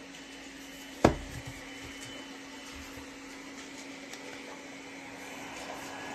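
Steady hum of a small motor, with a single sharp knock about a second in.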